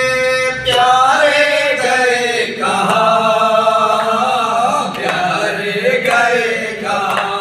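A group of men chanting an Urdu noha, a Muharram mourning lament for Husayn, unaccompanied into microphones, with long held notes that waver and bend in pitch.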